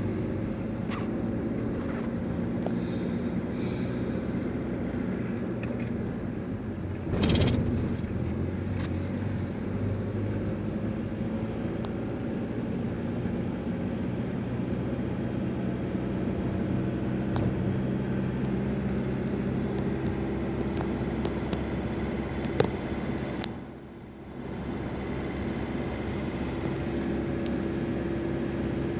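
Car engine and road noise heard from inside the moving car's cabin, a steady low hum. About seven seconds in a brief loud rush of noise stands out, and a little before the end the sound briefly drops away.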